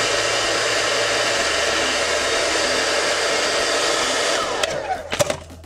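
Handheld hair dryer blowing steadily. About four and a half seconds in it is switched off, its motor winding down with a falling whine, followed by a couple of sharp knocks.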